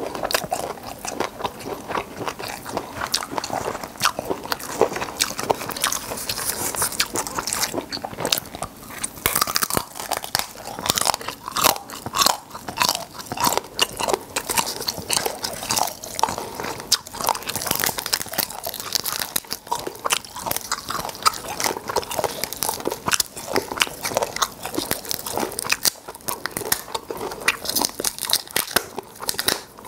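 Close-miked chewing and crunching of cooked black tiger prawns, mixed with the crackle of the prawn shells being cracked and peeled apart by hand: many quick, sharp crunches and clicks throughout.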